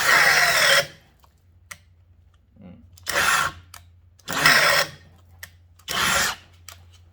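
Kobalt XTR cordless hammer drill boring into wood with a 1-inch Irwin bit, run in four short bursts of about half a second to a second, with stops between: a halting run that is not the drill's best.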